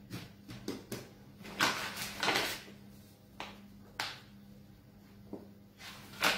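Hands handling a ball of shortcrust dough on a wooden pastry board, giving a few soft knocks and taps, with the rustle of a flour bag being picked up and tipped to dust flour over the dough. A faint steady hum sits underneath.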